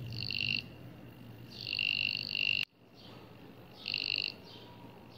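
The 5-volt buzzer of a 2N2222 Darlington-pair non-contact voltage tester beeping in three short, high-pitched bursts, the middle one longest, as a finger near its coil antenna sets it off: the circuit is sensitive enough to detect a hand.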